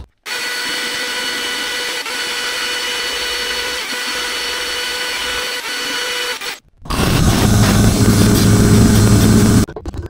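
A power tool's electric motor running steadily with a whine, stopping about six and a half seconds in; a louder, deeper machine sound then runs for about three seconds and cuts off just before the end.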